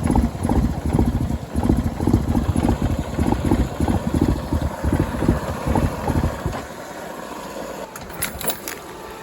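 A four-wheeler's (ATV's) engine runs with uneven, pulsing revs while the machine is bogged down in mud and water. About two-thirds of the way through it dies: the engine stalls.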